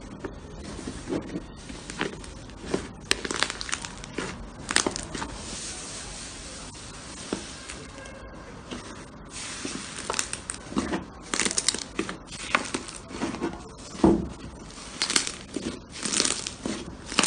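Slime being squeezed and stretched by hand, with irregular squelching pops and crackles, the loudest about fourteen seconds in.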